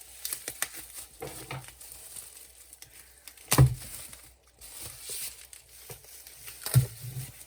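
Shipping box and packaging being opened by hand: crinkling, rustling and tearing, with two louder knocks, one midway and one near the end.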